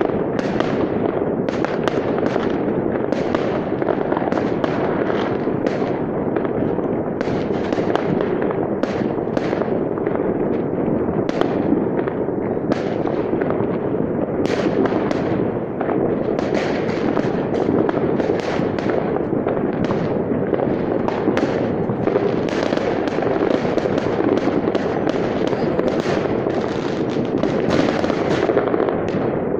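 New Year fireworks and firecrackers going off all over a town, many at once: an unbroken, dense barrage of overlapping bangs and crackles with no pause.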